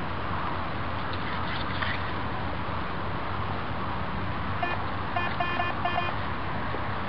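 Garrett Ace 250 metal detector giving a quick run of short beeps about four and a half seconds in, lasting about a second and a half, as the search coil passes over a metal target in the ground. A steady hiss runs underneath.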